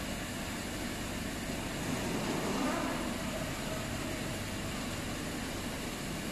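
Vertical CNC machining center milling a metal block under flood coolant: the spindle and end mill run and cut with a steady mechanical noise, mixed with the hiss of the coolant spray.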